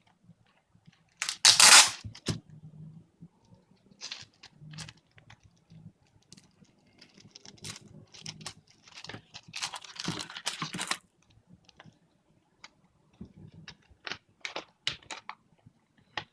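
A paper leaflet being handled and unfolded, rustling and crinkling in irregular bursts, the loudest just under two seconds in and another cluster around ten seconds in.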